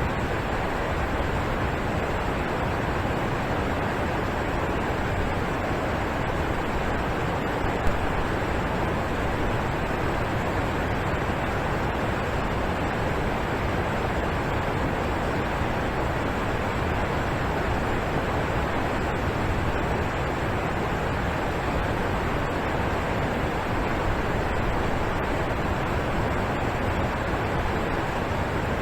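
Alpine waterfall rushing: a steady, even roar of falling and splashing water, with one brief click about eight seconds in.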